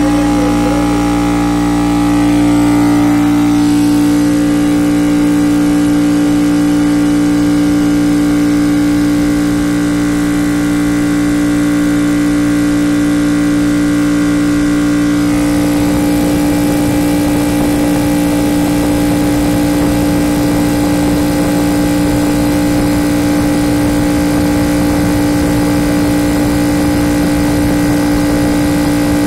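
Craftsman air compressor running with a strong steady hum as its motor and pump fill the tank, the gauge climbing past 110 psi. About halfway through the sound turns slightly rougher.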